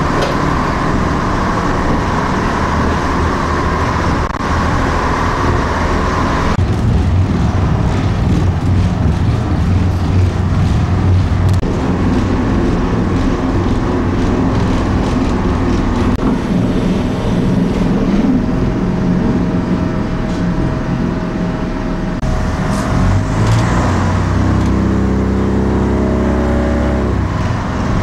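Diesel train running along the track, heard from inside the driver's cab, with a steady engine drone. Near the end the engine note rises as it speeds up.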